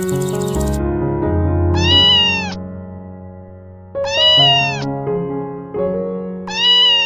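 Domestic cat meowing three times, about two seconds apart, each meow rising then falling in pitch, over background music.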